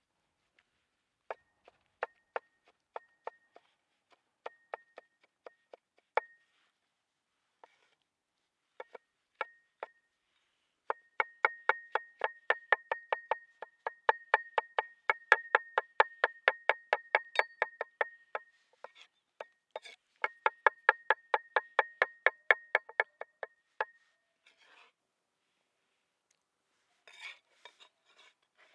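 Knife chopping on a wooden cutting board: a few separate strokes, then two fast runs of about five strokes a second, each stroke with a short, bright ring.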